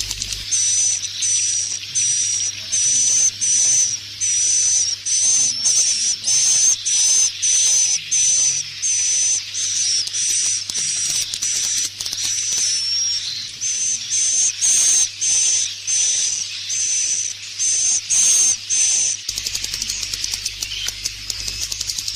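Swiftlet roosting-call lure recording ('suara inap'), played to draw edible-nest swiftlets into a nest house. Short, high chirps repeat steadily, about one and a half to two a second, over a dense hissing chatter of many swiftlets. The chirps stop about 19 seconds in, leaving only the chatter.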